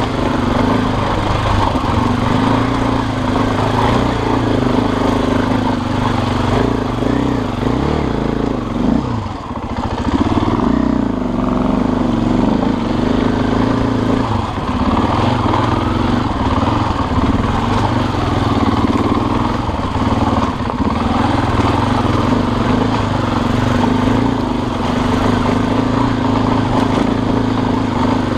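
Dirt bike engine running while riding a trail, its revs rising and falling with the throttle and dropping off sharply about nine seconds in before picking back up.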